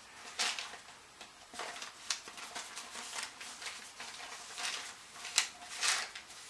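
Comic books and cardboard being handled: a series of brief paper rustles and soft scrapes, a few seconds apart.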